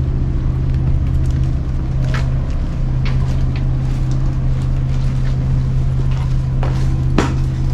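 Ferry engine running steadily alongside the jetty, a loud constant low hum, with a few sharp knocks over it.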